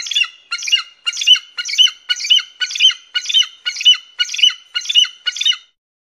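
An eagle calling: a series of about eleven high-pitched calls, evenly spaced at about two a second, which stops abruptly a little before the end.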